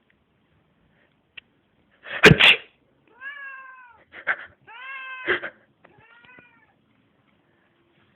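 A person sneezes loudly once, about two seconds in, and a domestic cat answers with three meows, each rising and then falling slightly in pitch, the last one fainter. Short breathy bursts come between the meows.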